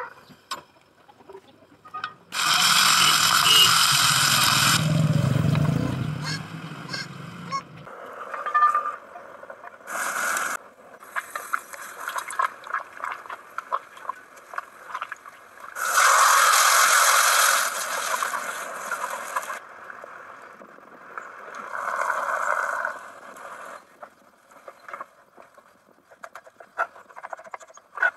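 Food preparation: a hand squeezing and mashing tomatoes in an enamel bowl, then a knife cutting mushrooms on a wooden board with small taps. Two longer loud, noisy stretches, about two seconds in and past the middle, are the loudest sounds.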